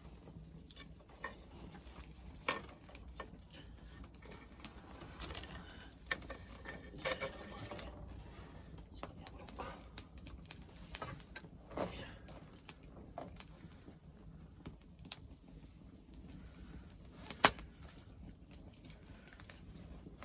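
Cooking over an open wood fire: irregular light clicks, taps and clatter with occasional sharp snaps, one louder snap about three quarters of the way through.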